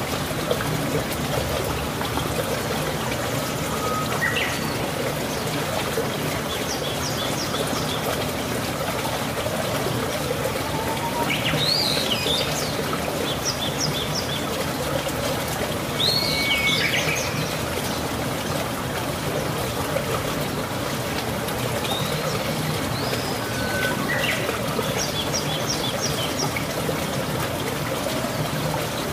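Birds chirping every few seconds over a steady rushing noise, perhaps from running water.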